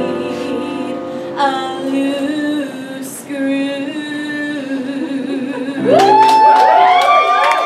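Female voice singing the closing of a musical-theatre number with accompaniment. About six seconds in, the audience breaks into loud cheering and whooping, and clapping begins.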